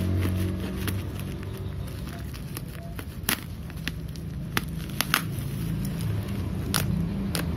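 Utility knife slicing through bubble wrap on a parcel, with plastic crinkling and several sharp pops and clicks in the second half. A low steady hum runs underneath.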